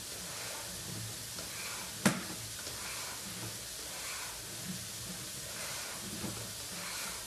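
Sewer inspection camera's push cable being pulled back out of the line: a steady hiss with soft knocks and one sharp click about two seconds in.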